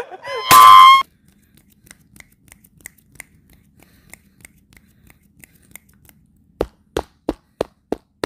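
A short, very loud, high-pitched squeal from a person about half a second in. Then faint scattered ticks, and near the end a quick run of about six sharp taps or clicks.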